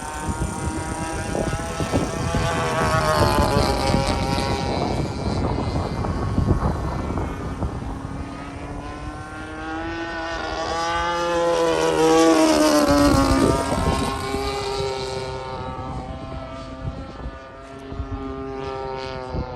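Single-cylinder two-stroke petrol engine and propeller of an RC P-47 Thunderbolt model in flight, passing by twice: the engine note swells about three seconds in and again near the middle, falling in pitch as it goes by.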